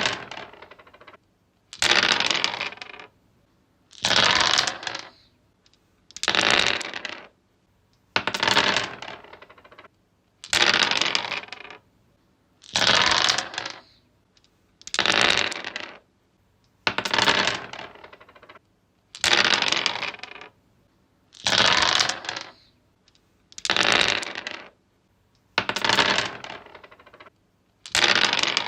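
Dice rolled again and again on a wooden surface. Each roll is a short rattling clatter lasting about a second, and a new roll comes roughly every two seconds, about thirteen in all.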